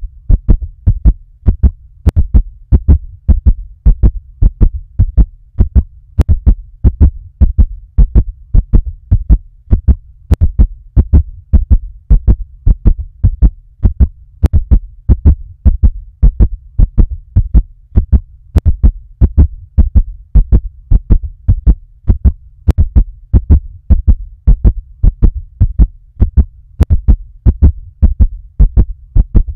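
Fast heartbeat: a steady, unbroken run of low 'th-thump thump' beats.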